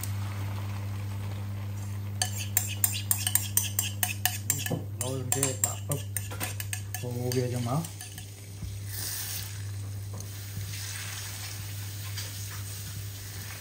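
Egg and bitter melon mixture frying in an oiled pan, with a spoon clicking and scraping rapidly against the bowl and pan for several seconds and a brief squeak, then steady sizzling. A steady low hum runs underneath.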